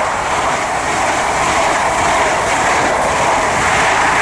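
Great Western Railway High Speed Train (Class 43 HST) passing through the station at speed, its Mark 3 coaches rushing by close to the platform. The wheels on the rail and the air give a steady, loud rushing noise.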